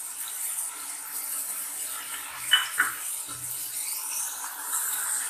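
Chicken karahi simmering in its sauce in a wok, with a steady sizzle and bubble, as a wooden spatula stirs it; two quick knocks of the spatula on the pan about halfway through.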